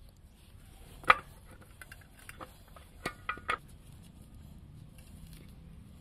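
Light metallic clinks of small metal parts or tools being handled: one sharp clink about a second in, then three more in quick succession around three seconds in.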